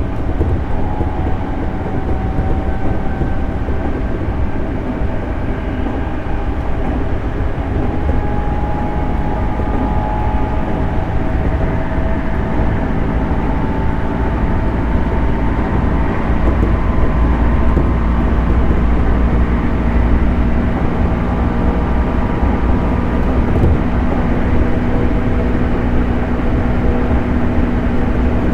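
JR 211 series 5600-subseries electric multiple unit running steadily along the line: a continuous low rumble of wheels on rail, with several steady hum tones that drift only slightly in pitch.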